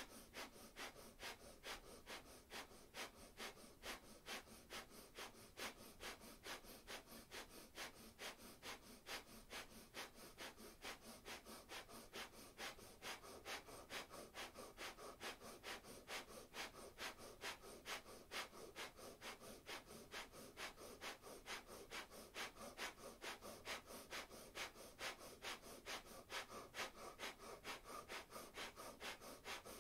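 Breath of fire: quick, forceful breaths through the nose, repeating in a fast, even rhythm, faint and steady.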